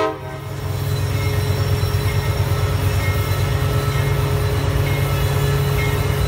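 CSX coal train's diesel locomotives passing close by, their engines running with a steady low rumble, with faint brief squeals from the wheels now and then.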